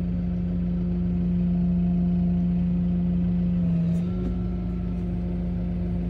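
Kubota M6 tractor's diesel engine running steadily, heard inside the cab. Its hum swells a little while the hydraulics angle the wing plow to the left, then a click and a slight drop in the hum about four seconds in as the hydraulic movement stops.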